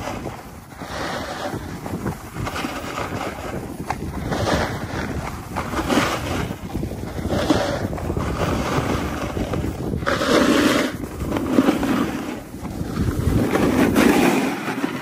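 Edges carving turns down packed, groomed snow, a scraping hiss that swells and eases every second or two, with wind rushing over the microphone.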